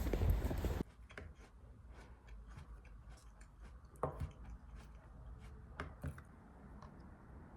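Louder noise with footsteps cuts off under a second in, leaving a quiet room with scattered light clicks and taps; sharper knocks stand out about four and six seconds in.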